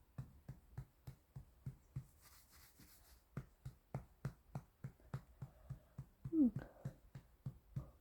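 An infant yawning: a short vocal sigh falling in pitch about six seconds in, over soft regular thumps about three a second.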